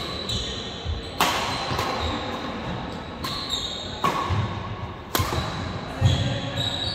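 Badminton rally on a wooden court: several sharp racket-on-shuttlecock hits, with brief sneaker squeaks and thudding footsteps on the wooden floor, echoing in a large hall.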